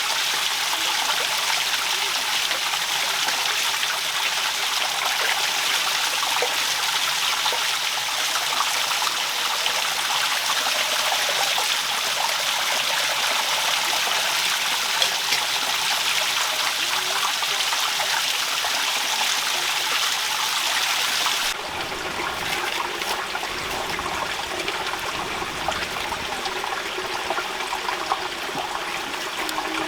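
Steady rain falling, an even, dense hiss of water. About two-thirds of the way through it cuts abruptly to a quieter, duller rain sound.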